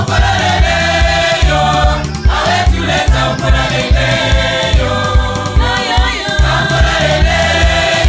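Congolese gospel song: a choir singing in harmony over a steady drum beat and bass line.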